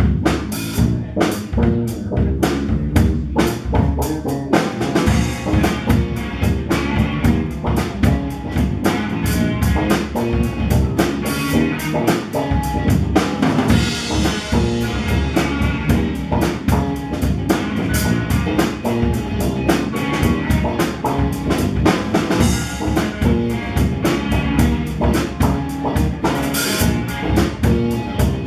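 Live rock band playing electric guitars and bass guitar over a drum kit, with a steady beat of drum hits. Cymbals ring out more brightly around the middle and again near the end.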